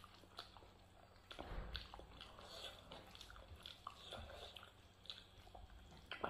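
Faint eating sounds: fingers squishing and mixing rice with masala dal on a plate, and small wet clicks of chewing, a little louder for a moment about a second and a half in.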